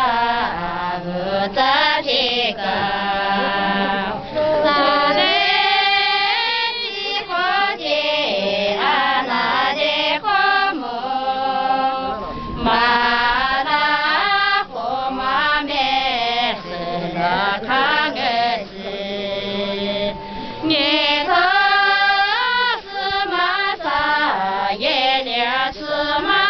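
A group of women singing together in unison, in long phrases with brief pauses between them.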